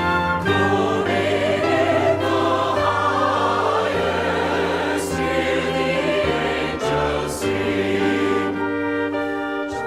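Choir singing a Christmas carol in sustained chords over instrumental accompaniment.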